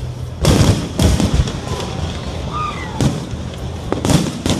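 Fireworks shells bursting in a rapid series of bangs and crackles, loudest about half a second in, with another cluster of bursts near the end.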